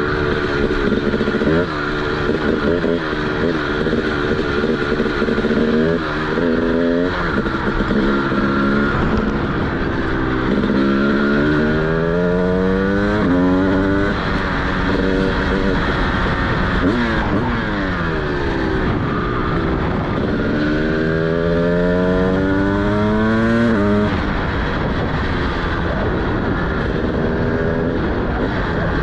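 TM SMR 300 single-cylinder two-stroke supermoto engine with a DBR exhaust, accelerating hard through the gears. Its pitch climbs and drops sharply at each shift, with short pulls early on and two long pulls in the middle and near the end.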